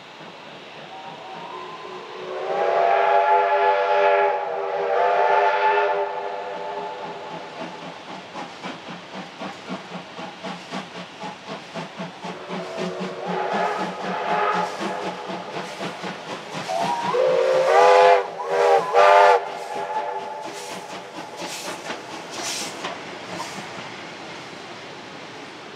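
Victorian Railways steam locomotive D3 639 sounding its steam whistle: a long blast about two seconds in, another in the middle, and a string of short blasts a little later. Between the whistles its exhaust beats sound in a steady rhythm as it hauls its carriages.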